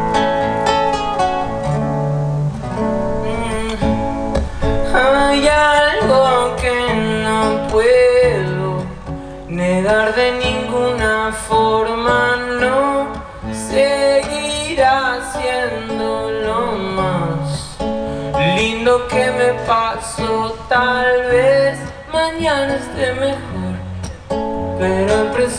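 Live acoustic song: an acoustic guitar played steadily, with a man's voice singing a melody over it from about four seconds in.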